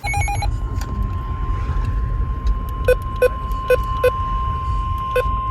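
Weather-radio emergency alert: the tail of a SAME digital header burst, then about half a second in the steady single-pitch 1050 Hz NOAA Weather Radio warning alarm tone, the signal that a warning (here a severe thunderstorm warning) is about to be read. A low rumble runs underneath, and five short blips sound over the tone.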